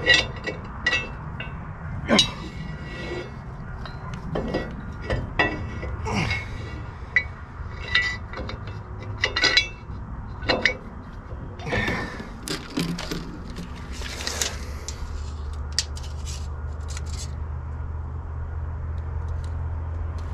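Steel clinks and knocks as a square steel table leg with a caster is turned and set on the perforated steel top of a fixture welding table, with loose bolts and washers rattling. The knocks are frequent for the first twelve seconds or so and then thin out over a steady low hum.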